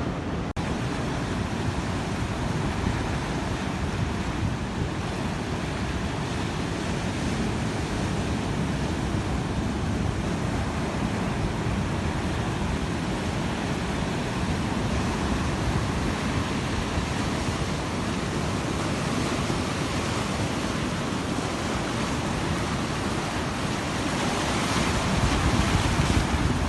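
Sea waves breaking and rolling on a beach, a steady roar of surf with wind buffeting the microphone. The surf grows louder near the end.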